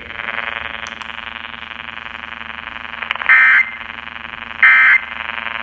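Emergency Alert System end-of-message data tones from a radio relaying a National Weather Service tornado warning: three short, raspy digital bursts about 1.3 seconds apart, over a steady buzzing hum. The bursts mark the end of the warning message.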